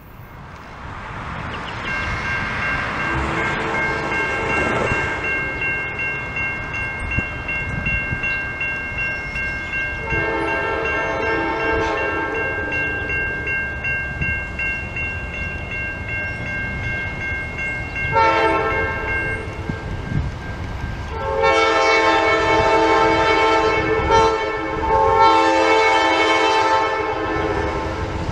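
Train locomotive horn sounding several blasts over the rumble of a moving train: a long blast about ten seconds in, a shorter one later, then two long blasts near the end. A steady high tone runs under the first two-thirds.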